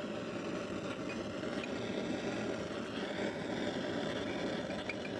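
Gas torch burning steadily, heating a steel blade toward cherry red for hardening, with a few faint ticks.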